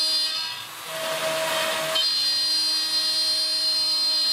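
CNC router spindle running with a steady high whine while its small bit mills a clamp hole into the plywood table top, the rasp of the cut coming and going, with a brief dip under a second in.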